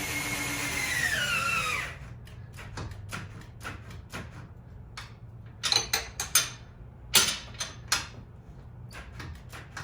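Power tool running a nut onto a control-arm bolt: a whining motor whose pitch drops as it takes up load, stopping about two seconds in. Several sharp metallic clinks of tools and parts follow around six and seven seconds.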